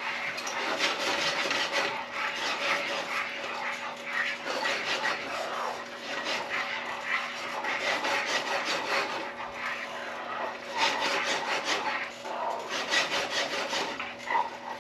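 Wooden spatula stirring and scraping across the bottom of a metal frying pan, working a roux-thickened sauce as it thickens on the heat. The scraping is continuous and uneven, coming in repeated strokes.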